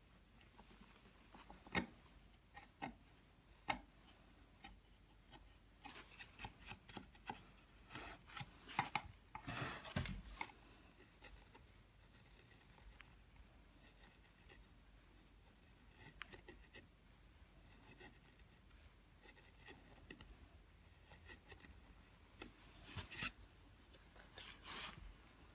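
Hand carving gouge scraping and paring fine details into a cast relief: faint, short scraping strokes. A few single ticks come first, then a run of quick strokes about a third of the way in and another near the end.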